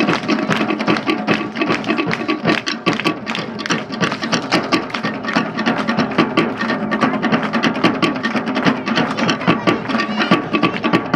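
Fast Polynesian drumming accompanying a Samoan fire knife dance: a dense, rapid run of drum strikes with no letup.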